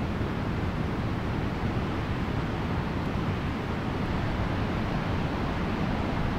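Steady, low rushing noise of wind and sea, with no distinct events.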